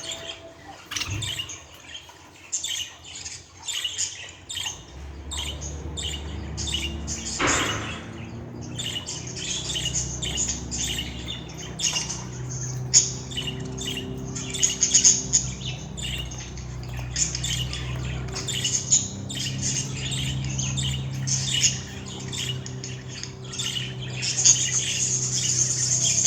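Budgerigar chirping and squawking in a rapid, continuous series of short, high chirps, over a low steady hum.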